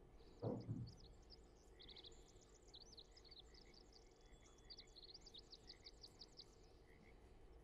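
Near silence, with faint, rapid bird chirping in the background through most of it. A brief soft thud about half a second in.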